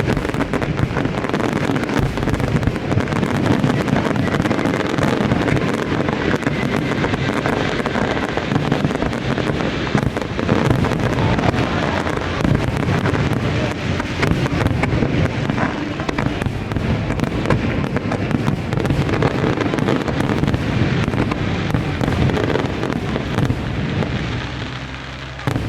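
Fireworks display in full barrage: a dense, continuous run of bangs and crackles with no pause, easing slightly just before the end.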